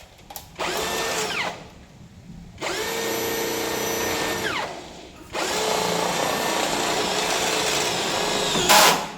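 Power drill driving screws: three runs of the motor, about one, two and three seconds long, each winding down in pitch as the trigger is let go. The last run ends in a short, loud rasp.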